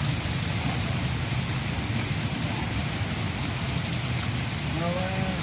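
A steady hiss over a low, even hum, with faint ticks scattered through it. Near the end, a short pitched sound rises and falls.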